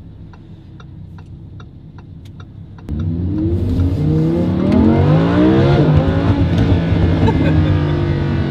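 Lamborghini Huracan's V10 engine running low with a light, regular ticking, then about three seconds in it goes suddenly loud under hard acceleration, its pitch climbing, dropping once at a gear change, and staying loud at high revs.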